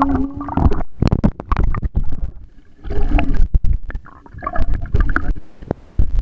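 Muffled water gurgling and sloshing with irregular knocks and bumps, picked up by a camera held just under the sea surface.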